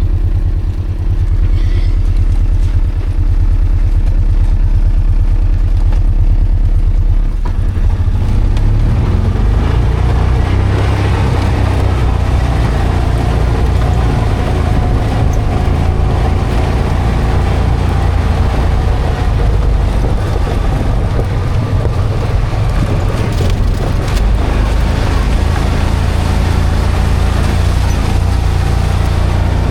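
An engine running steadily with a low, even pulse. From about seven seconds in it turns fuller and noisier, as under more load.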